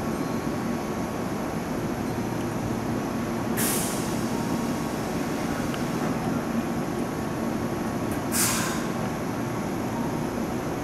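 Keihan 2600-series commuter train standing at a station platform with its onboard equipment humming steadily, broken twice by short hisses of released compressed air, about five seconds apart.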